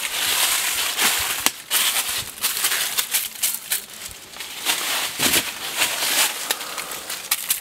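Footsteps crunching and rustling through dry fallen leaves and twigs, with many irregular crackles.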